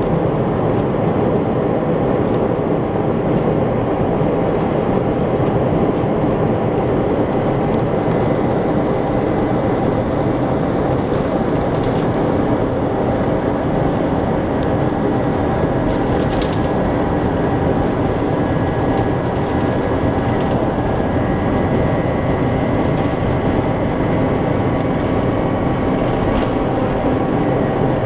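Steady engine and airflow noise heard from inside the cabin of an Airbus A321 airliner, with a faint steady whine running through it.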